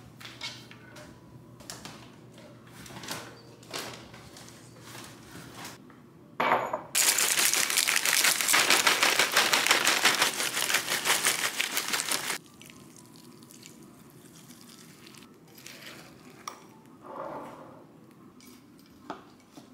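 Dry cereal pouring from a plastic bag into a ceramic bowl: a dense, continuous rattle lasting about six seconds, beginning about six and a half seconds in. Before it come scattered light knocks of a cabinet and kitchenware, and near the end a spoon clinks softly in the bowl.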